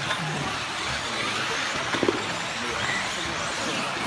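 Electric radio-controlled racing cars running on a carpet track: a steady blend of motor whine and tyre noise with faint rising and falling pitch as they accelerate and brake, and a couple of sharp knocks about two seconds in.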